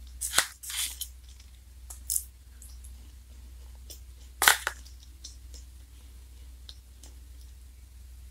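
Crumpled ice cream cone wrappers crinkling as they are gathered up and lifted by hand, in a few short bursts, the loudest about four and a half seconds in.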